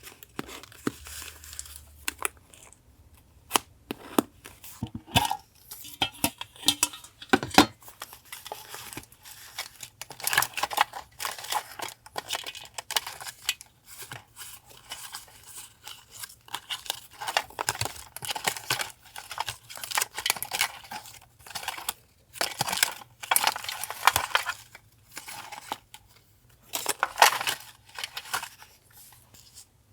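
Paper being handled close up: crinkling, rustling and tearing, with many irregular sharp clicks and taps.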